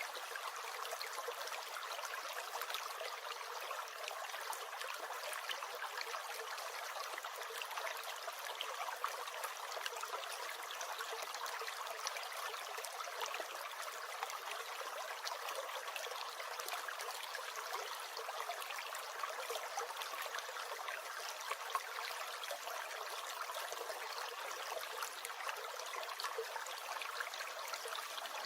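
Small stream gurgling and trickling steadily: an even watery hiss full of quick little splashes, with almost no low rumble.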